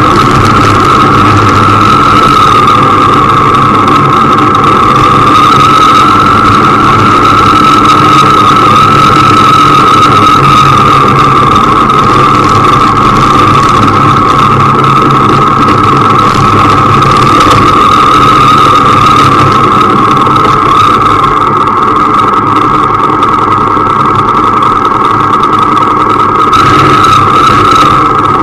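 Motorcycle engine running steadily on the move, loud and close, with a high-pitched whine held over it and a rushing noise beneath.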